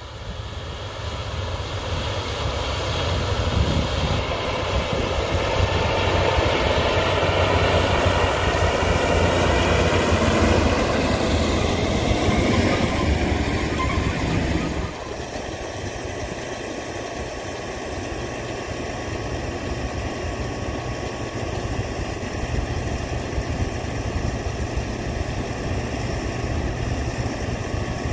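John Deere 9630T track tractor's 13.5-litre turbocharged six-cylinder diesel running under load as it pulls a high-speed tillage disk through the soil. It grows louder as it approaches, and its pitch drops as it passes. About halfway through, the sound changes abruptly to a steadier, quieter running.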